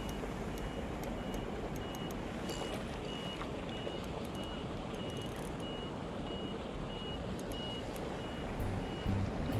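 An electronic beeper sounding a short high beep about twice a second, evenly spaced, over a steady background hiss.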